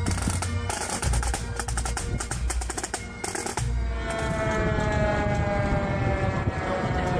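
Pipe band snare drums playing rolls and rapid strokes over bass drum beats. About four seconds in, this gives way to a long siren tone from a vintage fire truck, falling slowly in pitch.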